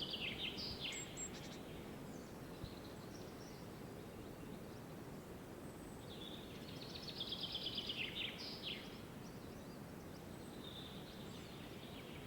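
Forest ambience: a songbird sings fast trilled phrases that drop in pitch, one ending about a second in and another about halfway through, with fainter calls between, over a steady low background hum of environmental noise.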